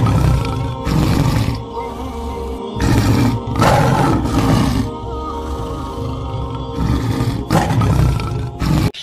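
Lion roaring in a series of loud bursts over steady background music, with the sound cutting off abruptly near the end.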